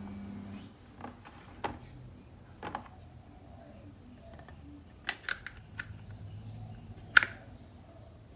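Small metal clicks and handling noises of a Kahr PM9 pistol being reassembled, its slide with barrel and recoil spring being fitted onto the frame. A quick run of clicks comes about five seconds in, and one sharp, loudest click about seven seconds in.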